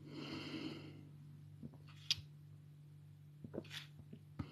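Quiet room tone with a steady low hum. A soft rush of noise comes in the first second, and a few faint, short clicks follow.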